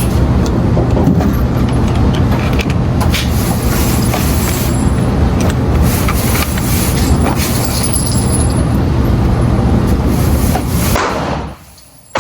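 Car running, a steady low rumble with a few light clicks, heard from inside the vehicle; the rumble cuts off sharply near the end as the engine is switched off.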